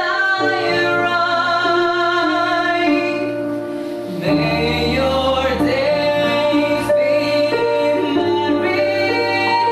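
Classically trained mixed vocal quartet, two women and two men, singing slow held chords in close harmony. A fuller chord with a low bass note comes in about four seconds in.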